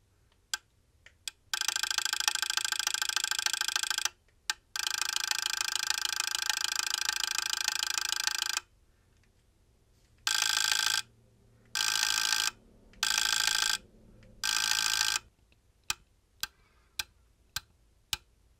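Benchmark LA4 preamplifier's volume-control relays switching as the knob is turned: a few single clicks, then two long runs of rapid clicking that blur into a buzzing chatter, four shorter bursts, and single clicks about twice a second near the end.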